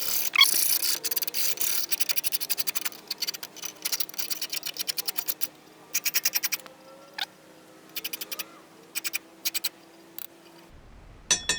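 Hand file deburring the cut edge of a metal tube. It makes quick, short scraping strokes in a fast run at first, then in shorter groups with brief pauses between them.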